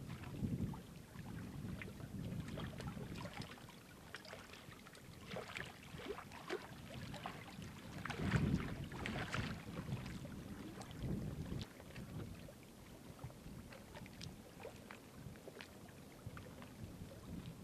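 Small waves lapping and splashing against shoreline rocks, coming in irregular swells with light trickling splashes; the largest surge comes about eight seconds in.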